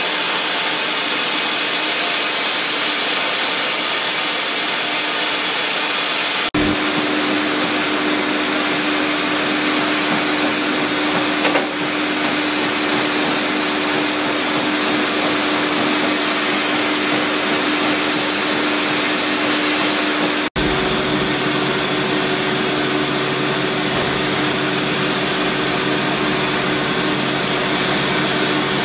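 Flexible-shaft rotary carving tool running with a fine needle burr grinding jade: a loud, steady whirring hiss. The sound changes abruptly twice, about a third and two-thirds of the way through, and a steady hum is present after the first change.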